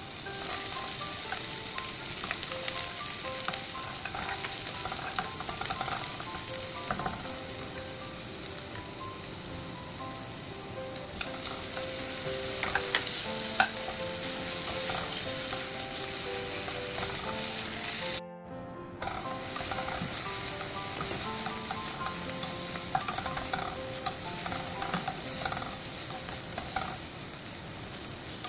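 Diced red onion and chicken pieces sizzling steadily in hot olive oil in a pan, with a wooden spoon stirring and scraping them around, its small knocks heard through the sizzle.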